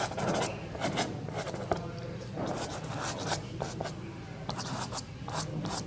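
Square soft pastel stick swiped across paper in a run of short, irregular strokes, then fingertips rubbing over the pastel to soften the cloud edges.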